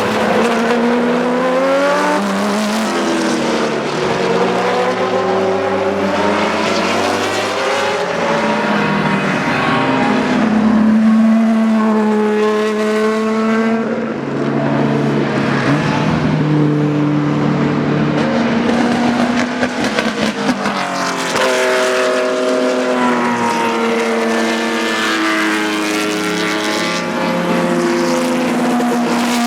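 BMW M1 Procar's straight-six racing engine running hard, its pitch climbing and dropping again and again as it accelerates and changes gear.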